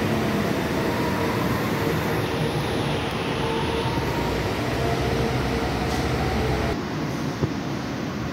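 Metro train running, with a whine of several tones gliding slowly in pitch over a steady rumble. Near the end this gives way to quieter station ambience with a couple of faint clicks.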